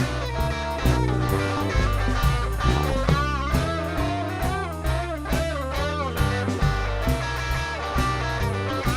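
Live rock and roll band playing an instrumental passage: an electric guitar lead with bent, wavering notes in the middle, over bass and drums.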